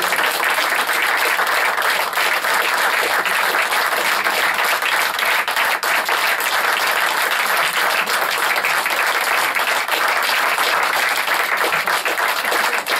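Small audience applauding, a dense steady patter of many hands clapping.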